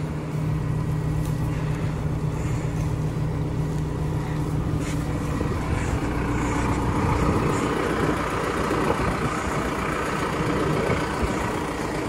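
Tractor engine running steadily at idle close by, an even low hum.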